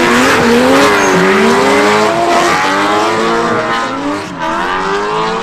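The E92 M3's 4.0-litre V8 in a drifting BMW, revving up and down several times as the throttle is worked, with a brief dip in level about four seconds in.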